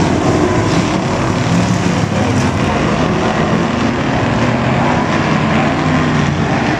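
Several factory stock race car engines running together at racing speed. Their pitches rise and fall as the cars go through the turns and down the straight.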